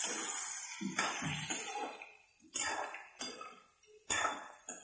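Soya chunks frying in hot oil in a steel kadhai while a metal spoon stirs them. A steady sizzle for the first second or so, then several sudden scrapes and clinks of the spoon against the pan.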